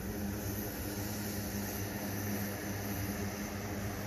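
Steady low drone of a running engine, an even hum with a constant hiss over it and no change in pitch or level.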